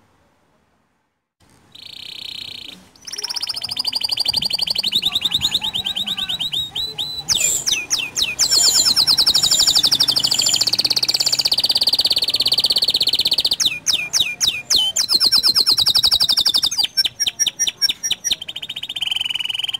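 A small local-bred canary singing a long, loud song of fast, high trills and warbles. It starts about a second and a half in, with short breaks near the middle and again toward the end.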